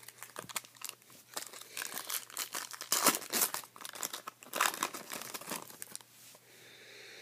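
Foil wrapper of a 2014 Topps Chrome trading card pack being torn open and crinkled: a dense run of sharp crackles, loudest about halfway through, that dies away about a second before the end.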